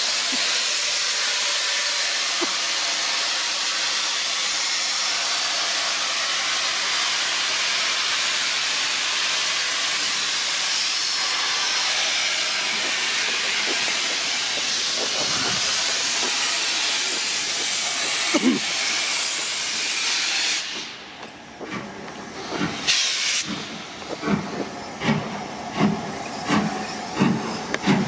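LMS Black 5 two-cylinder 4-6-0 steam locomotive releasing a long, loud, steady hiss of steam that cuts off suddenly about twenty seconds in. After a short burst of steam, its exhaust beats start as it pulls away, a regular chuff roughly every three-quarters of a second.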